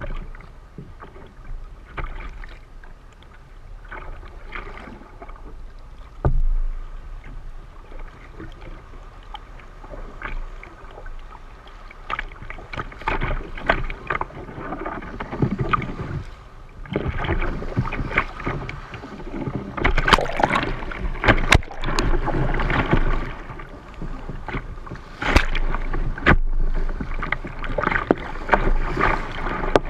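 Sea water splashing and slapping against a kayak's hull as it is paddled through choppy water, with paddle-blade strokes. It gets louder, with repeated surges and sharp slaps, in the second half.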